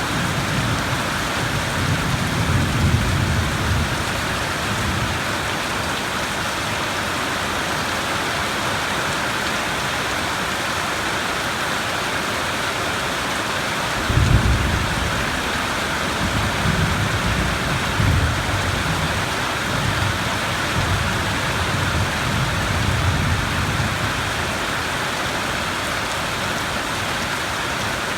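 Steady rain with rolling thunder: a low rumble in the first few seconds, then a sharper clap about halfway through that rolls on for several seconds.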